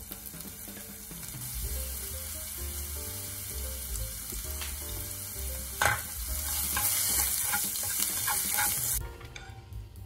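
Julienned carrot strips sizzling in a non-stick frying pan as they are stirred with chopsticks. There is a sharp knock about six seconds in. The sizzle cuts off about nine seconds in.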